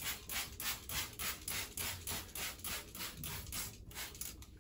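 Trigger spray bottle of plastic-and-glass cleaner being pumped rapidly, a short hiss of spray about four or five times a second, stopping shortly before the end.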